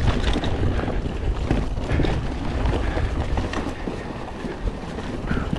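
Mountain bike riding fast down a dirt trail: wind buffeting the microphone over a rumble of tyres on the ground, with frequent clatters and knocks from the bike over bumps.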